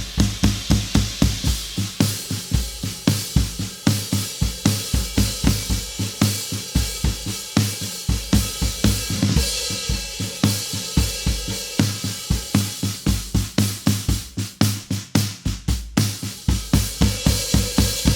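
Drum kit groove played with bass drum, snare and cymbals, at about three to four strokes a second. Near the end comes a fill of rapid strokes, and the kit then rings out. The snare is a Gretsch Swamp Dawg 8x14.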